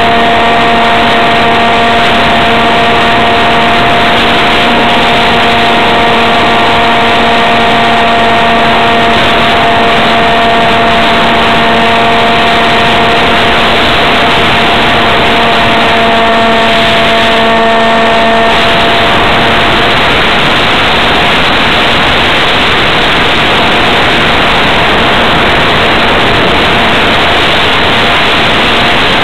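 An RC plane's electric motor and propeller whine at a steady pitch, recorded from a camera mounted on the plane. Loud wind rush over the microphone runs throughout. The motor whine fades out about two-thirds of the way through, leaving only the wind noise.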